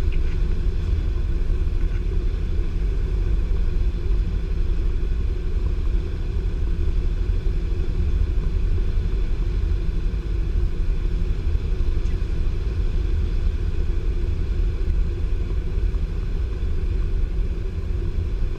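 Cessna 150's four-cylinder Continental O-200 engine and propeller droning steadily, heard inside the cabin on final approach to landing.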